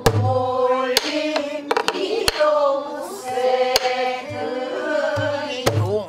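Korean Namdo folk singing with wide vibrato, held notes and slides, accompanied by a pansori barrel drum (buk): sharp strikes on the drum's wooden shell and deep booms on the drumhead mark the rhythm.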